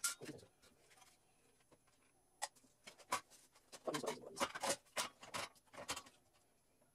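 Hard plastic parts of a disassembled Keurig K40 coffee maker clicking and knocking as they are handled on a workbench: a couple of single clicks, then a quick run of knocks about four to six seconds in.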